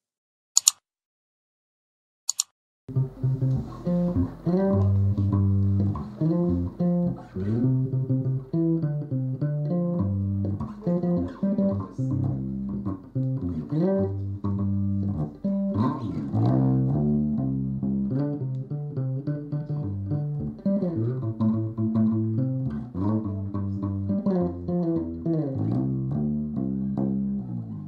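Two short clicks in the first few seconds, then an electric bass guitar played solo with the fingers: a continuous melodic run of low plucked notes, some of them sliding in pitch.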